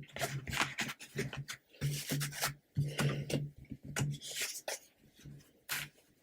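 Tarot cards being handled: card stock sliding and rubbing against card, with a string of irregular scrapes and light taps as cards are moved.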